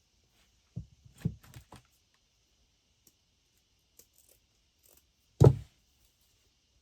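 Craft items handled and set down on a tabletop: a quick run of light knocks and clicks about a second in, then one louder knock near the end.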